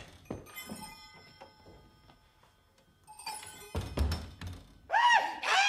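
Radio-play sound effects of someone leaving a room: a click, a faint ringing for a few seconds, then a door shutting with a thump about four seconds in. Near the end a high-pitched voice starts up.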